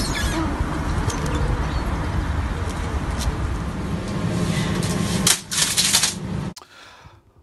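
Small petrol lawnmower engine running with a fast, rattling putter. A few sharp knocks come about five seconds in, then the sound cuts off abruptly.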